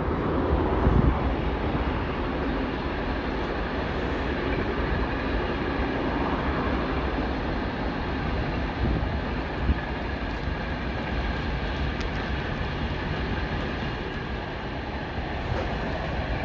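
A train running past on the line: a steady rolling noise of wheels on rails, slightly louder about a second in, with one sharp knock about ten seconds in.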